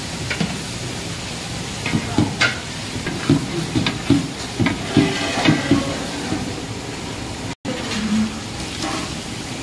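Diced carrots and herbs sizzling in hot oil in a steel pot, while a metal ladle stirs and knocks against the pot with a run of clinks and scrapes through the middle. The sound cuts out for a moment near the end.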